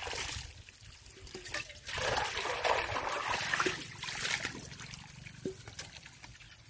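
Water pouring from a plastic pipe and splashing into a steel basin and onto the ground, in uneven surges that are loudest around the middle and ease off near the end.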